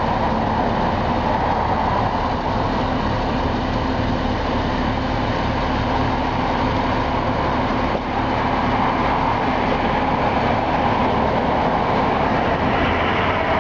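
Crane truck's engine running steadily, with a constant low hum.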